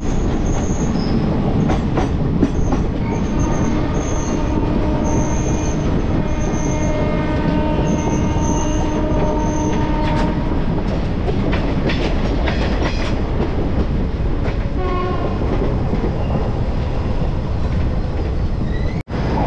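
Train running at speed, its wheels rumbling and clattering on the rails. A long steady horn sounds from about two seconds in to about ten seconds in, and a run of sharp clacks follows a little later. The sound drops out briefly near the end.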